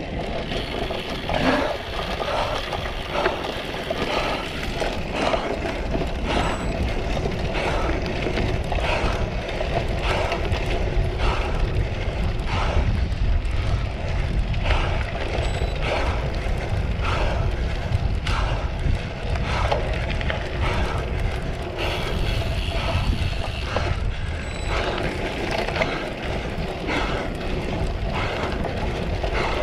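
Cyclocross bike ridden hard over a rough grass course, heard from the bike: a steady rumble of tyres and wind, with frequent knocks and rattles from the chain and frame over bumps.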